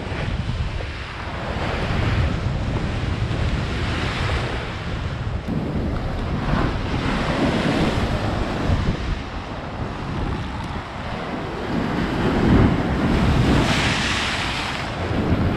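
Ocean surf breaking on a rocky shore, with wind buffeting the microphone. Near the end a wave crashes and sprays close by, the loudest moment.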